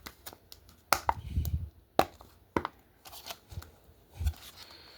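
Hands handling small packaging and toy pieces: a series of sharp taps and clicks, as of plastic set down or knocked on a table, with a short rustle about a second and a half in.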